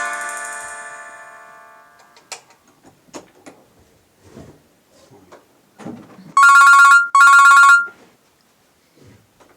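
Nokia 6230 mobile phone playing its tones through its small loudspeaker. A plucked-string ringtone chord fades out, a few faint clicks follow, then two loud electronic beeps of about two-thirds of a second each, with a short gap between them, make up a double-beep alert tone.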